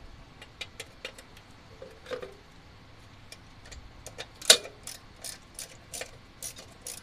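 Hand ratchet wrench clicking as bolts on an engine are turned: a few scattered clicks at first, then a steady run of about three clicks a second from about halfway, with one much louder click among them.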